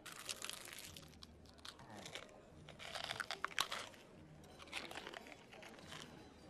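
A whole langoustine's shell crunching and crackling as it is bitten and chewed. The crunching comes in several spells, at the start, loudest about three seconds in, and again about five seconds in.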